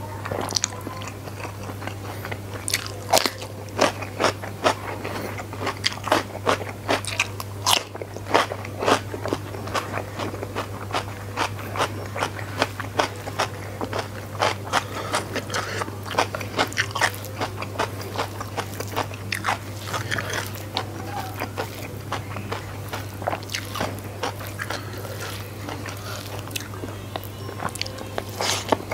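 A person chewing food close to the microphone, with frequent, irregular crisp crunches and wet mouth clicks throughout. A steady low hum runs underneath.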